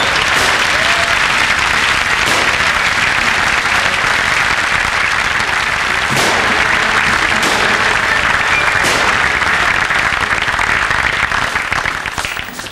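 Studio audience applauding, a loud steady clapping that dies away about a second before the end.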